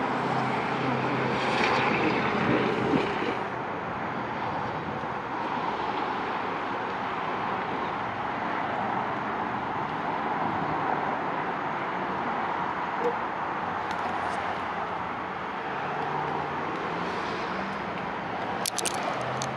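Steady rushing outdoor background noise, with a few faint clicks near the end.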